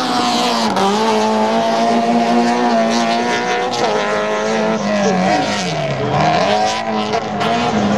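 Rallycross race car engine running hard at high revs, its pitch mostly steady, with a sharp drop in revs and a climb back about six seconds in.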